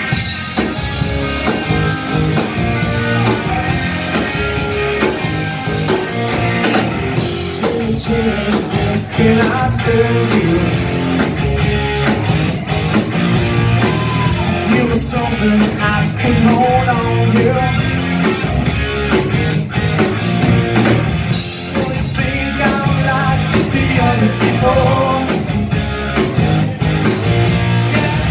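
Live rock band playing: electric guitars, bass guitar and drums keeping a steady beat, with a voice singing over them.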